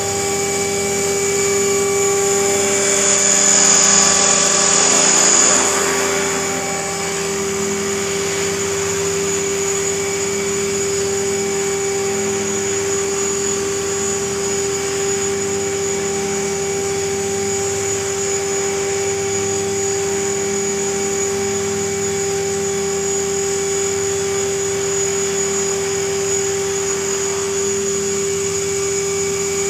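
Align T-REX 500 electric RC helicopter hovering: a steady whine from the motor and gears over the whoosh of the rotor blades. It grows louder for a few seconds near the start, then holds level.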